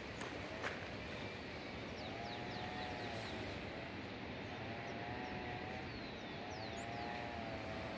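Outdoor mountainside ambience: birds giving short high falling chirps, and a distant animal's drawn-out call that rises and falls, repeated about every two seconds. A single faint step or click sounds near the start.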